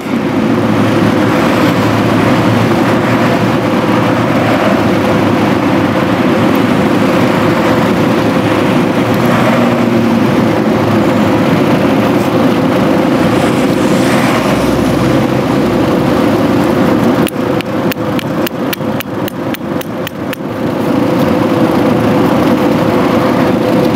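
Steady mechanical drone with a constant hum running throughout. About three quarters of the way through, a run of quick light clicks lasts some three seconds.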